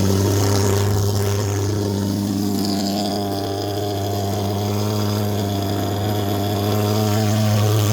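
Tasco KB 150 fogging machine running with a steady, loud low drone.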